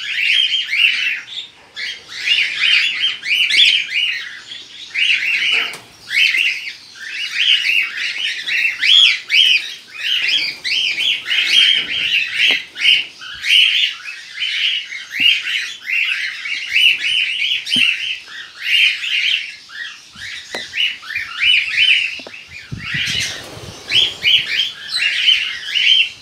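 A flock of cockatiels in a colony aviary calling nonstop, a dense overlapping chatter of short, high chirps and squawks. A brief rustling noise comes through near the end.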